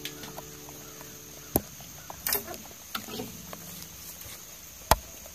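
The last chord of an acoustic guitar dies away, then close handling noise takes over: a sharp knock about one and a half seconds in, rustling and scattered knocks, and a louder thump near the end.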